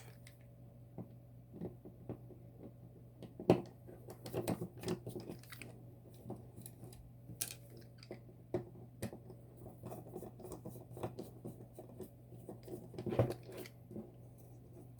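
Irregular metallic clicks and short scrapes of hand tools cutting open a Tann detector lever lock to gut it, with the sharpest click about three and a half seconds in and a cluster near the end, over a steady low hum.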